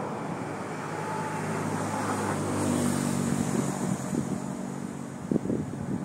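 A motor vehicle's engine running as it passes, growing louder toward the middle and then easing off. Near the end, wind gusts buffet the microphone.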